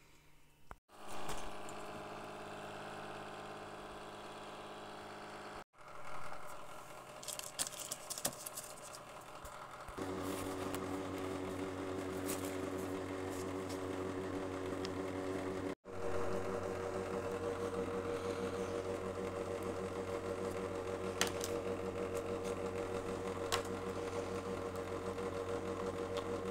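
Electric cooktop running with a steady electrical hum and whir. It sounds across several spliced takes, and a few light taps and scrapes come from the fuel being worked by hand.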